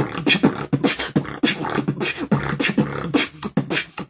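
Vocal beatboxing of a basic drum and bass beat: fast, even mouth-made kick drums, an outward rolled R and snares.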